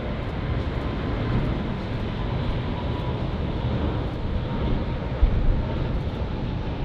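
Airbus A380's four Rolls-Royce Trent 900 turbofan engines at takeoff thrust as the jet climbs out, a steady rumble with a faint fan tone running through it.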